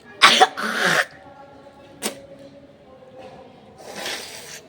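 A woman sneezing sharply, then blowing her nose for about half a second. There is a click about two seconds in and a softer nose blow near the end.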